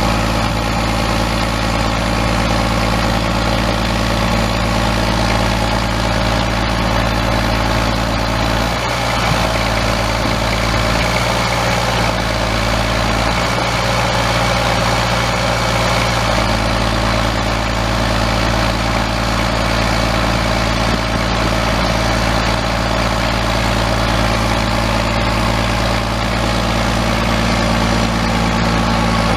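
Caterpillar 3126 7.2 L six-cylinder turbo diesel truck engine idling steadily.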